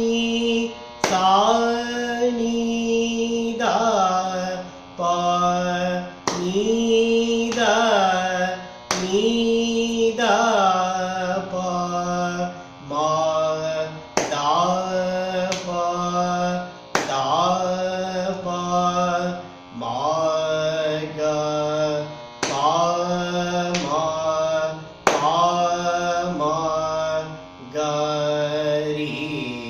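A man singing the swara syllables of a Carnatic alankaram exercise in Rupaka tala, at first speed. The short phrases step up and down the scale, with brief breaks every two to three seconds.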